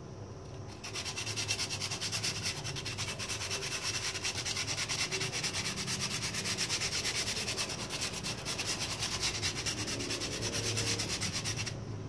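Styrofoam being sanded by hand: quick, even back-and-forth scratchy strokes of an abrasive over the foam surface, starting about a second in and stopping just before the end.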